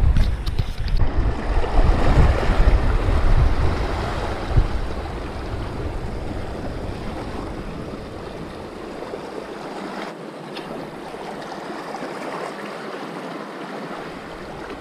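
Wind buffeting the microphone with a heavy low rumble, easing after about four seconds, over the steady wash of small waves against a rocky shore.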